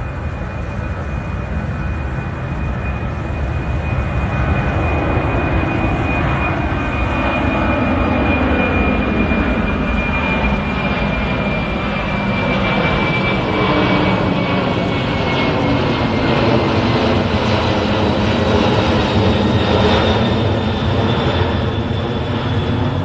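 C-5 Galaxy's four turbofan engines at climb-out power as the aircraft passes overhead: a loud, steady jet engine noise that grows louder over the first few seconds, with a high whine that slides slightly lower in pitch about two thirds of the way in.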